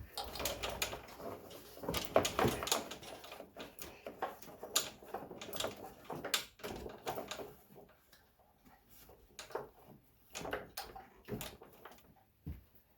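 Scattered clicks, knocks and scraping of hands and tools handling parts at a mower's oil filter. They are busiest over the first eight seconds, then sparser.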